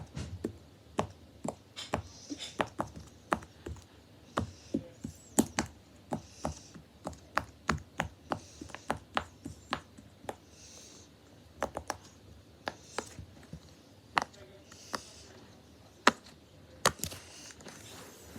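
Silicone pop-it fidget toy having its bubbles pressed one after another: a long run of sharp pops at about two to three a second, irregular in spacing.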